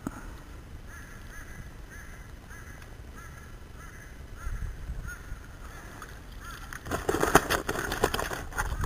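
A bird calling steadily in short repeated notes, about two a second. From about seven seconds in, a louder run of splashing and clatter as the landing net holding a thrashing flathead is lifted into the kayak.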